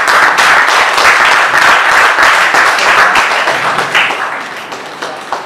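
Audience applauding, a dense round of clapping that fades away over the last second or so.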